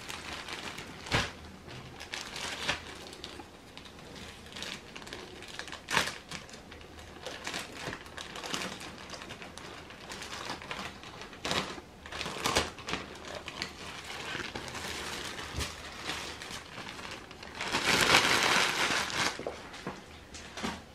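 Clear polyethylene garment bag crinkling and crackling as hands open it and slide a folded cotton t-shirt out, in irregular sharp crackles with a longer, louder rustle near the end.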